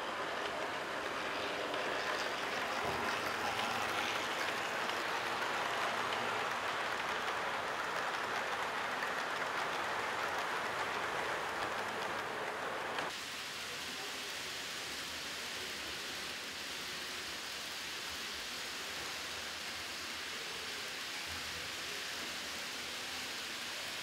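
Model train running along the layout track, a steady rolling whir; about 13 seconds in it cuts off abruptly and gives way to a thinner, steady hiss.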